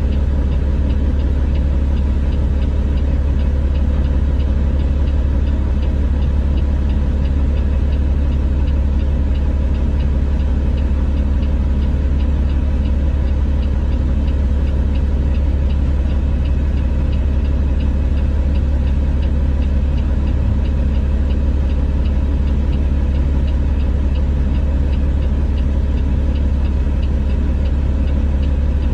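Heavy diesel machinery engines running steadily over a deep low rumble, with a faint, even ticking.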